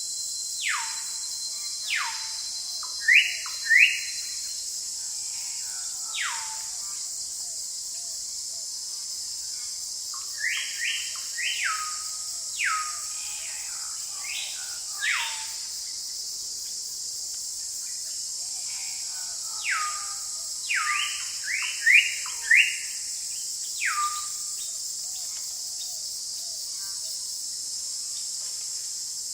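Forest birds calling in scattered bursts: sharp whistles that slide steeply down in pitch, mixed with short quick upward notes, over a steady high-pitched hiss of insects.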